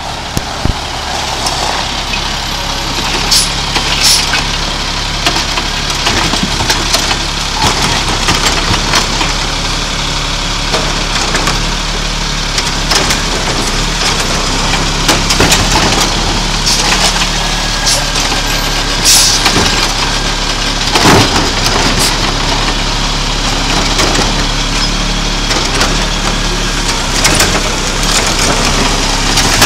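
GMC Heil Rapid Rail automated side-loader garbage truck running steadily while its hydraulic arm lifts a rubbish cart and tips it into the hopper. Several sharp knocks and clatters from the cart and the falling trash, the loudest about two-thirds of the way through.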